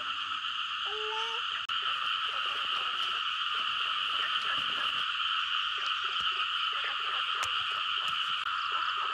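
A steady night chorus of frogs, keeping up an unbroken high-pitched trilling. A brief rising call comes about a second in, and faint scattered clicks are heard in the second half.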